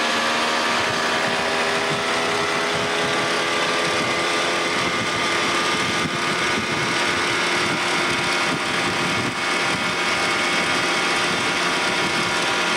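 Small boat's outboard motor running at a steady speed, its pitch drifting slightly, with a constant rushing noise underneath.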